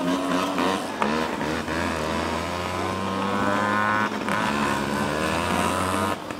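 Engines of children's small mini motorcycles running on a dirt oval, their pitch rising and falling with the throttle.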